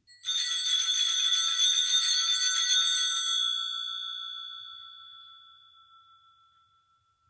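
Altar bells rung rapidly for about three seconds at the elevation of the chalice during the consecration, then ringing out and slowly fading, one lower tone lasting longest.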